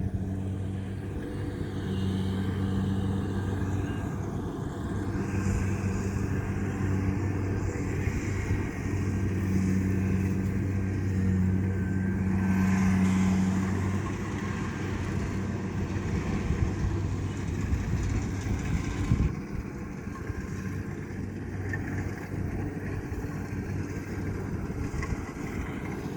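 Diesel engines of rice-harvesting machinery, a Kubota DC-70 combine harvester and a rice transport cart, running steadily while cutting in a flooded paddy. A steady pitched hum dominates until about halfway through, then gives way to a rougher, unpitched running noise.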